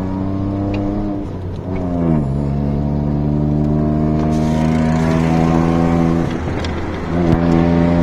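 Tata Altroz CNG's 1.2-litre three-cylinder engine droning through an aftermarket valvetronic exhaust, heard from inside the cabin while driving. Its pitch drops sharply about two seconds in, then holds steady; the note thins briefly near the end and comes back strongly.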